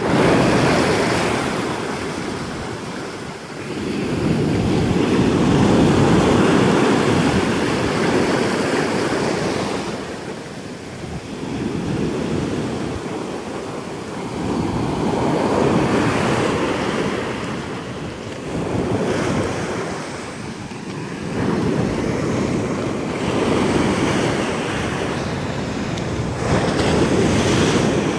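Ocean surf breaking and washing up a sandy beach, swelling and falling back every few seconds, with wind buffeting the microphone.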